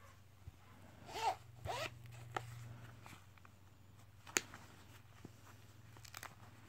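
Zipper on the back pocket of a gold envelope-style purse pulled open in two quick strokes about a second in, followed by a few light clicks and handling sounds as the purse is worked open.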